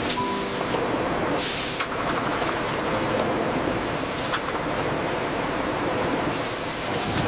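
Steady production-line machinery noise with two short hisses, like compressed air being released, about a second and a half in and again near the end.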